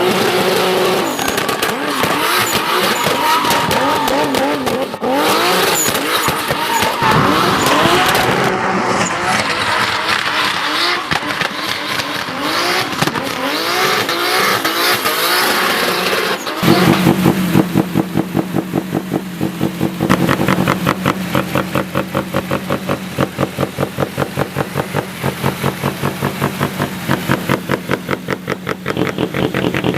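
Turbocharged 2.5-litre BMW E30 drifting: the engine revs hard up and down while the tyres screech. About halfway through it settles into a steady, pulsing idle.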